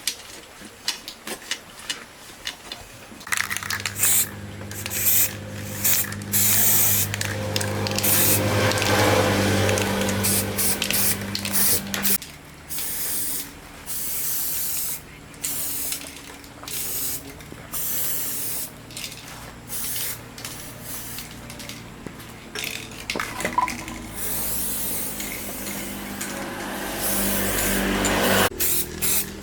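Repeated short bursts of hissing spray from a nozzle, some brief and some held for a second or more, at uneven intervals. A steady machine hum sits under the bursts for the first part and again near the end.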